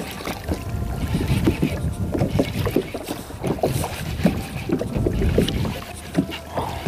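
Water slapping against a fishing kayak's hull in irregular knocks, with wind rumbling on the microphone.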